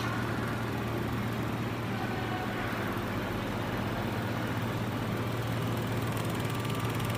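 Laser mould-repair welding machine running during rotary welding: a steady low electrical hum with an even hiss of fan noise.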